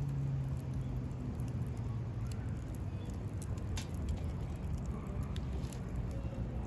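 Wood campfire burning, with scattered sharp crackles and pops over a low rumble. A low steady hum fades out in the first second or two.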